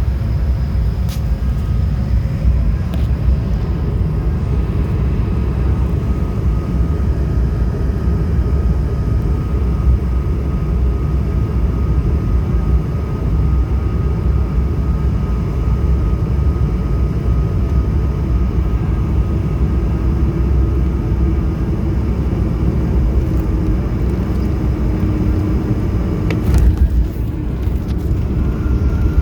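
Airliner cabin noise during the landing approach: a steady low rumble of engines and airflow with a faint steady whine above it. There is a brief clatter about 26 seconds in.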